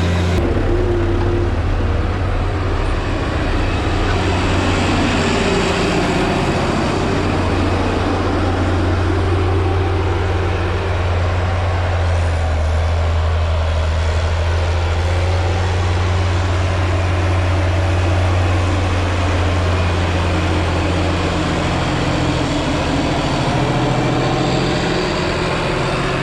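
Heavy tractor engine running steadily: a loud, even, low drone.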